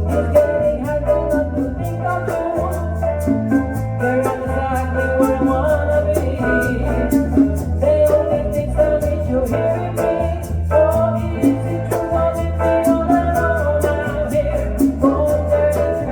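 A small Latin band playing a salsa-style groove: electric bass notes under keyboard and guitar, with congas and bongos keeping a steady beat.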